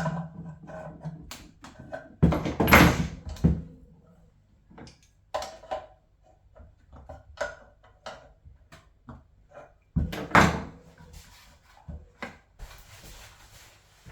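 Irregular clicks and knocks of parts and tools being handled, with two louder clattering bangs, one about two seconds in and one about ten seconds in, and a faint steady hiss near the end.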